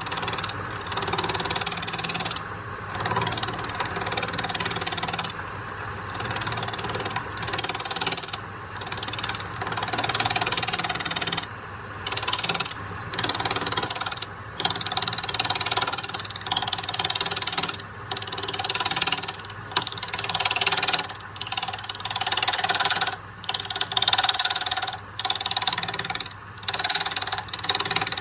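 Electric woodworking power tool running with a steady motor hum, cutting or shaping wood in passes: a rasping noise rises and drops away every second or two.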